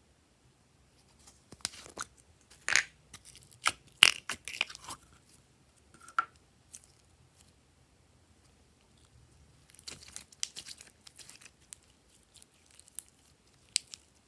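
A plastic cup of clear purple glitter slime being opened and emptied: clusters of sharp clicks and crinkling as the lid and seal come off, then sticky crackling as the slime is pulled out and stretched, with a last sharp click near the end.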